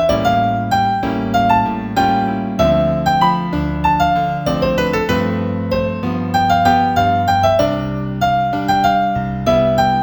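Background piano music: a melody of struck notes, a few a second, over sustained low notes.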